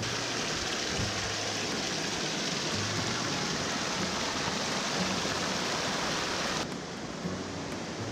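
River water rushing over a rock slab and down a small cascade into a pool: a steady, dense rush. Near the end it abruptly becomes duller and a little quieter.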